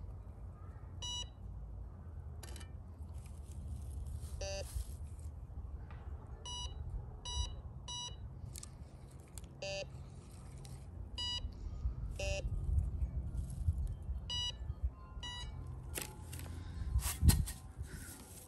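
Metal detector giving short electronic beeps at irregular intervals as it is swept over the dug spot, some at a higher pitch and some at a lower pitch, signalling metal under the coil. A steady low rumble runs underneath, and there is one loud knock near the end.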